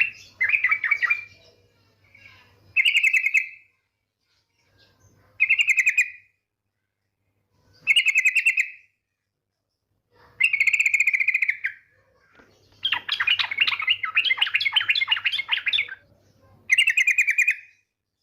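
Female yellow-vented bulbul (trucukan) giving its rapid rattling 'ngetir' trill, repeated about every two and a half seconds, with one longer chattering run of about three seconds near the end.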